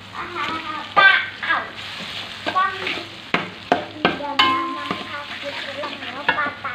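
Metal spoon stirring and scraping spice paste and palm sugar frying in oil in a wok: a steady sizzle under repeated scraping strokes of the spoon on the pan, a few of them with a brief squeak.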